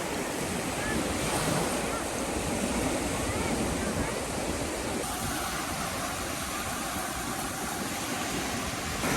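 Sea waves breaking and washing up on a beach, a steady rush of surf.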